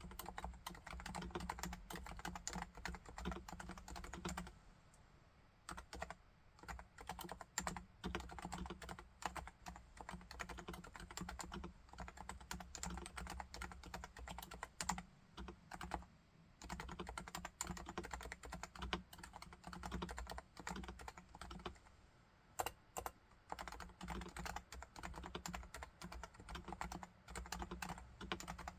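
Continuous typing on a Realforce R2TLSA keyboard with silenced 45 g Topre electrostatic capacitive switches: a dense run of keystrokes, with a short pause about five seconds in.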